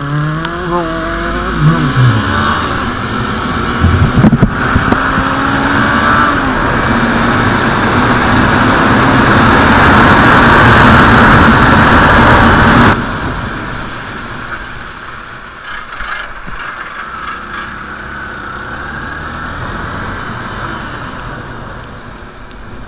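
Motorcycle engine pulling away and gathering speed on the road, with a rush of noise that builds steadily over several seconds and drops sharply about thirteen seconds in; after that engine and road noise go on more quietly.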